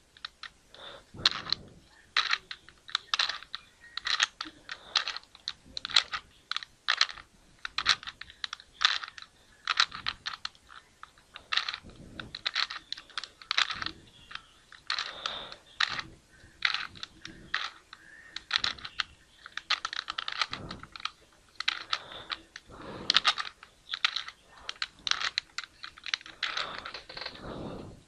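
Plastic 3x3 Rubik's Cube being turned over and over, its layers clicking and clacking in quick, irregular turns, a few a second.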